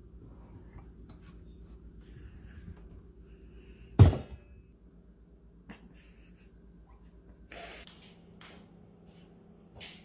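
A single sharp thump about four seconds in, with a few fainter clicks and a short hiss later, over a steady low hum.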